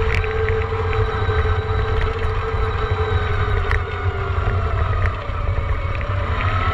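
Electric dirt bike's motor whining steadily while riding, its pitch sagging and rising again with speed, over a strong low rumble from wind and the rough trail, with a few sharp knocks from bumps.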